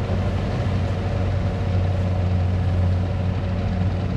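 Kubota combine harvester's diesel engine idling steadily, a constant low hum.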